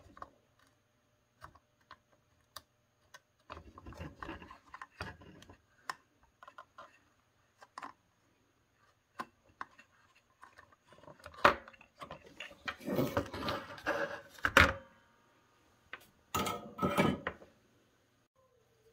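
Handling noise from desoldering a capacitor off a circuit board: scattered sharp clicks and taps, with a few bursts of scraping and knocking from the board, soldering iron and parts on the bench. The loudest bursts come in the second half.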